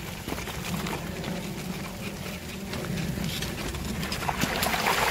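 Wheels of a child's push-along trike rolling over a rough gravel towpath: a steady rumble with scattered crunches and clicks, growing louder near the end as the trike heads into a puddle.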